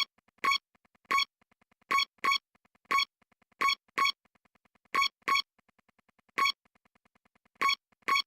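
Synthesizer music: short, bright notes on one repeated pitch, a dozen or so in an uneven rhythm, over a faint quick ticking pulse.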